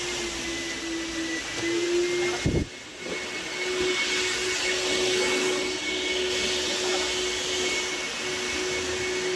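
Vacuum cleaner motor running steadily with a whining hiss. About two and a half seconds in, a knock and a brief break, then it runs on.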